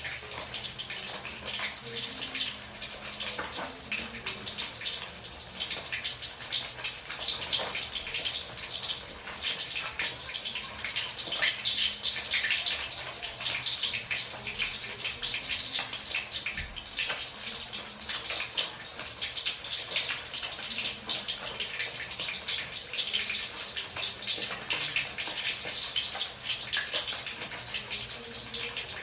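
Hot oil sizzling around a whole flatfish frying in a pan: a steady hiss thick with tiny crackling pops.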